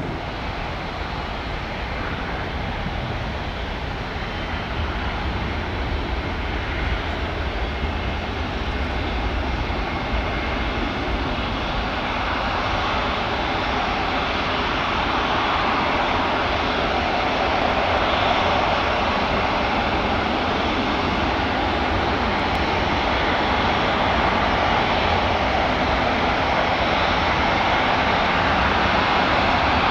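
Airbus A350-900's twin Rolls-Royce Trent XWB turbofans running at taxi power: a steady jet rush with a faint whine, slowly growing louder as the airliner taxis.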